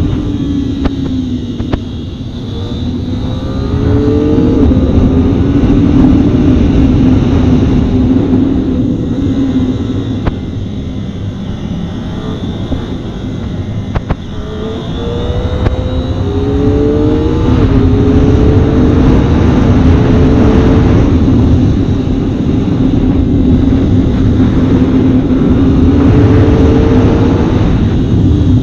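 Kawasaki ZX-25R's 250cc inline-four engine pulling hard under the rider, its pitch climbing in several runs that each drop back at a gear change, with quieter off-throttle stretches between. Heavy wind noise runs underneath.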